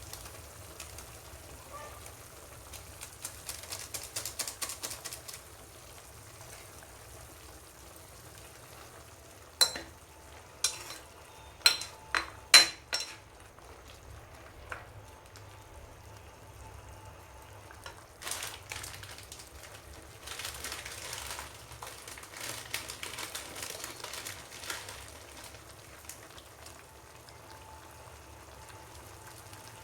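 Close-up eating sounds of spicy noodles: wet chewing and slurping, with a metal utensil clinking sharply against the bowl five or six times between about ten and thirteen seconds in.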